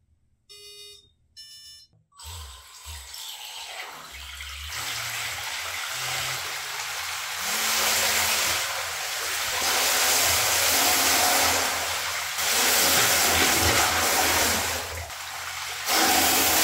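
A brushless ESC gives three short startup beeps, then the 3100kV brushless motor drives the 26 mm jet pump under water, its jet of water rushing loudly. The water rush swells and eases with the throttle over a low motor hum that steps up and down in pitch.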